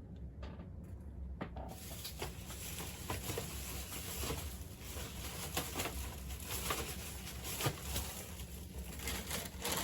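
Rustling and irregular clicking of packaging being handled and rummaged through, starting about two seconds in, over a low steady hum.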